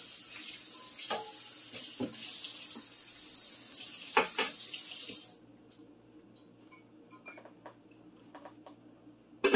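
Kitchen faucet running, water splashing over a pot lid held under it in a stainless steel sink, with a few light knocks. The tap is shut off about five seconds in, leaving only faint clinks of handling.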